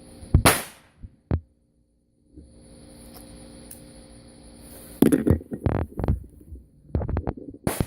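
Black Cat firecrackers going off: two sharp bangs, a steady hiss, then a rapid, irregular string of pops that sound like gunshots.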